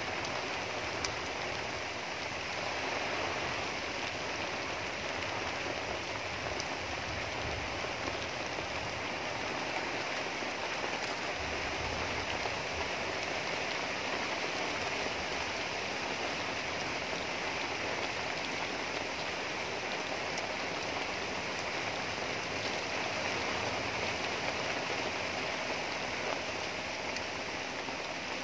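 Steady rain falling on leafy trees and bare ground.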